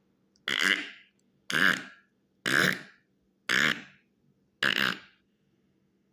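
A person's voice making a run of five short mouthed sound effects, about one a second, each a brief pitched burst.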